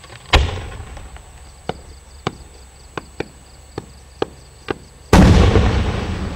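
Aerial firework shells bursting: a sharp bang about a third of a second in, then seven smaller pops spread over the next few seconds, then a much louder boom about five seconds in that rumbles and dies away slowly.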